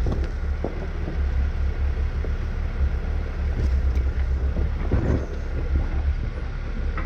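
Jeep engine idling with a steady low rumble, with a few brief knocks over it.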